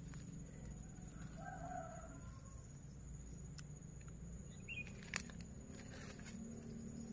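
Quiet outdoor background with a faint bird call about a second in and a single sharp click about five seconds in.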